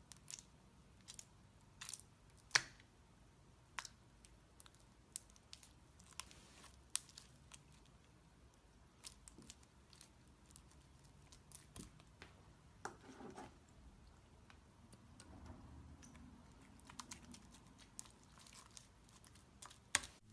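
Slime being squeezed and worked by hand: faint, irregular sharp clicks and crackles, with a louder snap about two and a half seconds in and another near the end.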